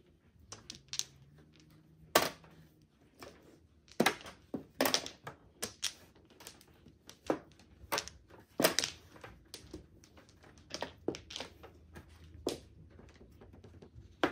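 Mahjong tiles clacking as they are picked up, set down and discarded on the table: irregular sharp clicks, a few much louder than the rest.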